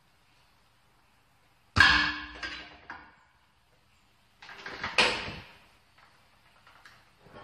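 Heavy metallic bangs that ring out and die away: a hard strike about two seconds in, two lighter knocks just after it, then a clatter building into another hard strike about five seconds in.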